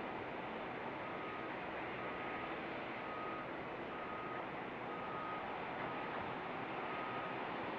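Steady distant airport noise with a vehicle's reversing alarm beeping about once a second, each beep short and high-pitched.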